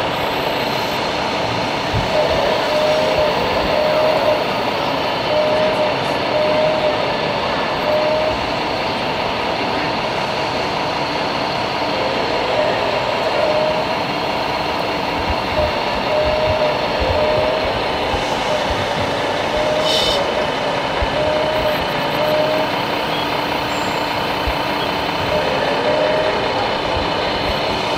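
Steady din of a busy hall with radio-controlled model construction machines working, a short mid-pitched whine or beep recurring every second or so.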